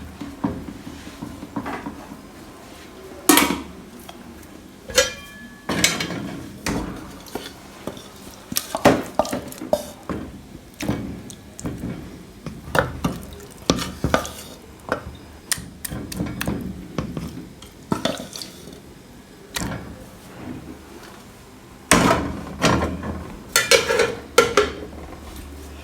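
Dishes, pots and utensils clattering and clinking in irregular knocks, with a brief metallic ring about five seconds in and a quick run of clatters near the end.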